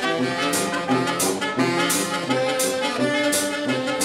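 Live street band of saxophones, trumpet and accordion playing a brisk tune, with a clash of hand cymbals on each beat, about one and a half a second.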